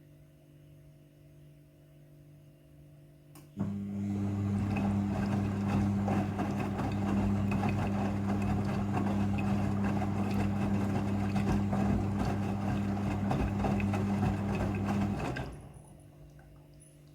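Midea front-loading washing machine humming with water rushing through it. The sound starts suddenly about three and a half seconds in, holds steady, and cuts off about twelve seconds later.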